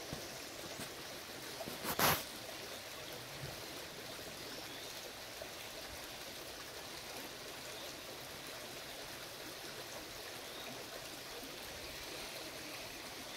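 Shallow creek water running and trickling steadily. A short, sharp noise comes about two seconds in.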